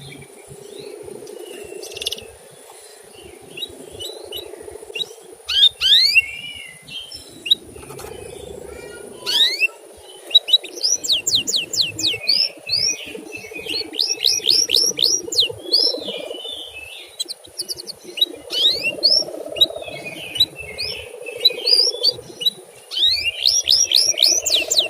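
Male canary singing: runs of quick downward-sweeping chirps, several a second, broken by short pauses, over a steady low hum.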